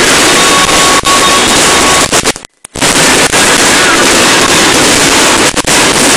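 Fireworks and firecrackers going off amid a stadium crowd's din, so loud that the recording is overloaded and cuts out completely for a moment about two and a half seconds in.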